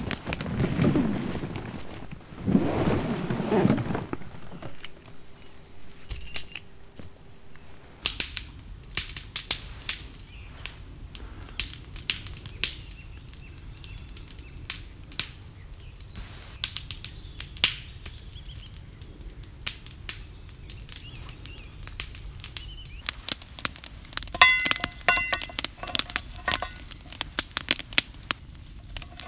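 Log campfire burning, the wood crackling with frequent sharp pops and snaps that start about a quarter of the way in.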